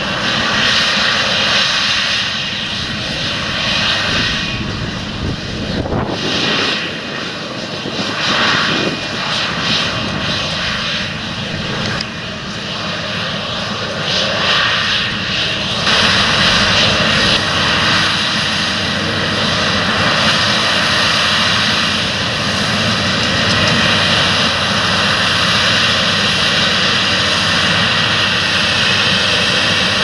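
Challenger MT775E rubber-tracked tractor's six-cylinder diesel engine running steadily under heavy load as it pulls a ten-furrow plough through stubble. The engine note shifts in level twice, about 6 and 16 seconds in.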